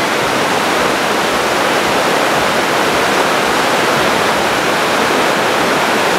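Rushing white water of a mountain stream cascading over rocks in a narrow gorge, a steady, even roar.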